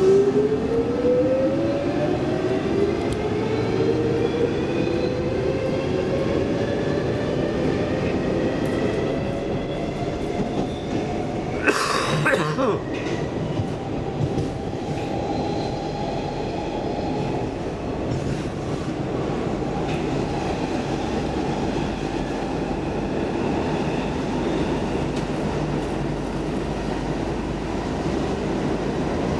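Stockholm Metro C14 subway car pulling away from a station, its motors whining and rising in pitch as it accelerates, then settling into steady running noise with rail clatter. A short, loud rush of noise comes about twelve seconds in.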